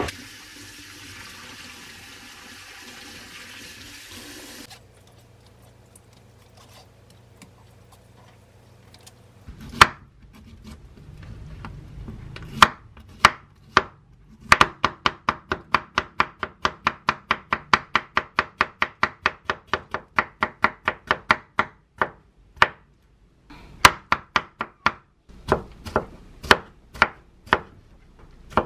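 Kitchen knife cutting a Korean zucchini on a wooden cutting board: a few separate slicing knocks at first, then fast, even chopping at about four strokes a second as it is minced, with a short pause before more chopping. It opens with a few seconds of steady hiss.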